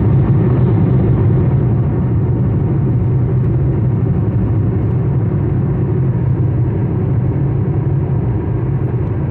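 Steady low rumble of road and engine noise heard from inside a car's cabin while it drives along a highway.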